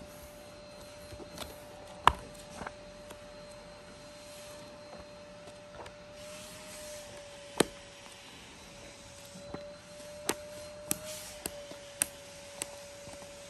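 Paperback book being handled and its pages turned: soft paper rustling with scattered sharp clicks and taps, more of them in the last few seconds, over a steady faint hum.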